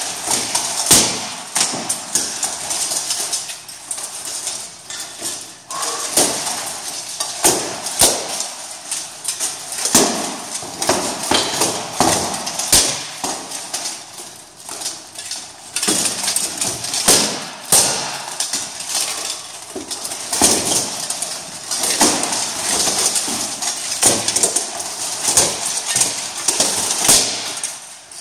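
Steel plate armour clanking as two armoured fighters spar, with an irregular run of metallic knocks and clashes from blows of swords on armour and shield.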